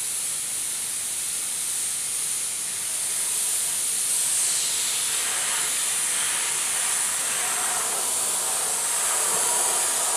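Badger Renegade Velocity R1V airbrush with a fine-line air cap spraying paint: a steady hiss of compressed air from the nozzle while fine lines are sprayed.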